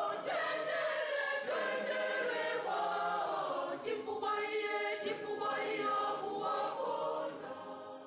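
A choir singing, fading out near the end.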